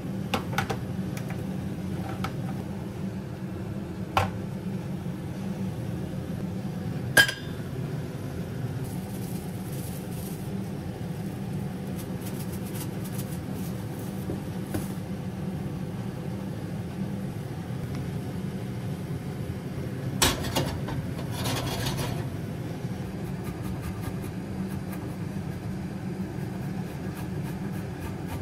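Steady low hum with a few sharp clinks and knocks of metal pans and utensils on a stainless steel stovetop. The loudest clank comes about seven seconds in, and a couple more come around twenty seconds in.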